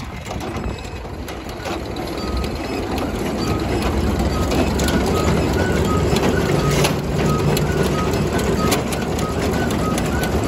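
McCormick-Deering threshing machine running under a flat belt driven from a tractor, its mechanical rattle building up over the first few seconds as it comes up to speed and then holding steady. A short, regular squeak repeats about three times a second from about halfway in.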